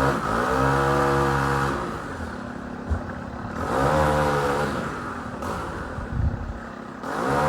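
A gasoline engine on tree-cutting equipment running hard, its pitch repeatedly dropping and climbing back as it bogs down under load and recovers.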